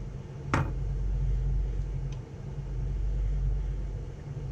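Steady low hum, with one sharp click about half a second in and a faint tick about two seconds in, as the dash cam is handled while its rear camera is plugged in.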